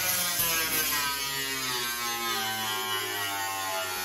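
Angle grinder with a cutoff wheel cutting through the steel body pillar of a Model A Ford, its whine dipping in pitch and rising again.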